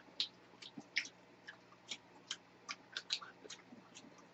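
Faint, irregular small clicks and ticks, about three a second, over a low steady hum.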